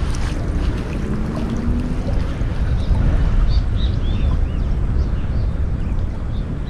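Wind buffeting the microphone, a steady low rumbling noise, with faint high bird chirps in the second half.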